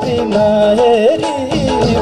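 Nepali folk-style song music: a wavering, ornamented melody line over a continuous accompaniment.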